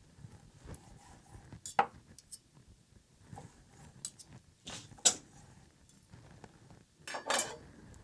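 Steel knife and fork clinking and scraping against each other and a wooden cutting board while slicing a grilled steak. There are a few sharp clinks, the loudest about five seconds in, and a longer scrape near the end.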